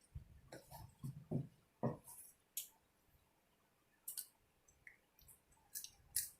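Scissors snipping through snow crab leg shells: a handful of short, sharp cuts spaced irregularly, with soft clicks and handling noises between them.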